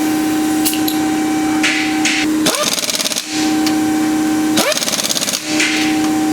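Cordless impact wrench with a 13/16 socket, spinning freely with a steady whir and then hammering in two bursts of rapid blows, about two and a half and four and a half seconds in, as it runs nuts down tight.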